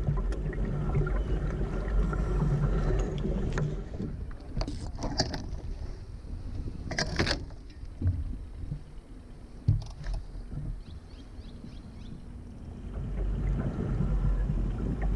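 Small sailing dinghy under way: water washing along the hull and wind rumbling on the microphone, easing off in the middle and building again near the end. A few sharp knocks from the boat's gear come about five, seven and ten seconds in, the last one the loudest.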